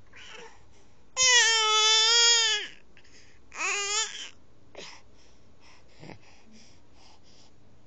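Baby vocalizing: one long, high, steady fussy whine lasting about a second and a half, then a shorter one about a second later, followed by a few faint small sounds.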